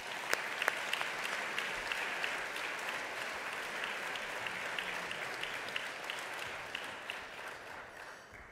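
Audience applauding, a steady patter of many hands, with a few louder claps close to the microphone in the first second. It dies away near the end.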